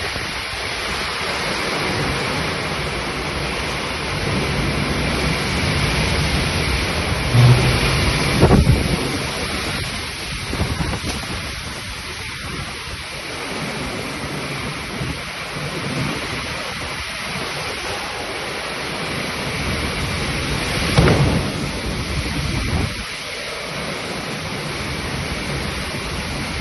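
Heavy rain pouring steadily, with two louder surges of thunder, one about eight seconds in and another about twenty-one seconds in.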